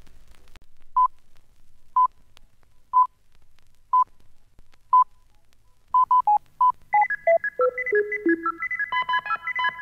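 Five short, identical beeps, one a second, like a film-leader countdown. About six seconds in, a fast run of bleeping notes starts, falls in pitch and leads into upbeat music.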